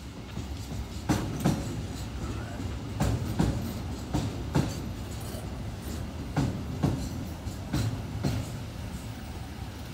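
A train rolling past with a steady rumble and the clickety-clack of its wheels over the rail joints. The knocks come in pairs, a pair every second or two, as each bogie's two axles cross a joint.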